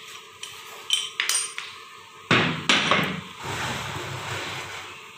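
Light metallic clinks, then two louder clunks a little over two seconds in, followed by brief rustling. The sounds come from a piston and connecting rod knocking against the cast-iron block of a 4D34T diesel engine as they are worked in the cylinder bore and withdrawn during an oil ring end-gap check.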